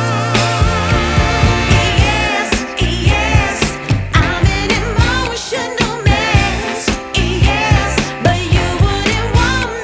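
Background song: a singing voice with vibrato over a steady beat and bass line.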